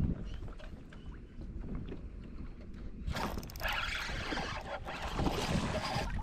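Spinning reel whirring for about three seconds, starting about three seconds in, as a hooked snook is fought from a kayak. Under it, wind and water noise on the microphone.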